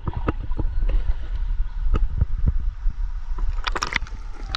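Wind buffeting the microphone as a low rumble, with scattered small clicks and knocks and a brief cluster of sharper crackles near the end.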